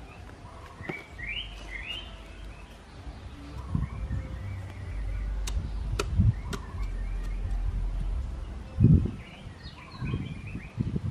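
Birds chirping in short bursts, over a low rumble, a few sharp clicks and dull thumps; the loudest thump comes near the end.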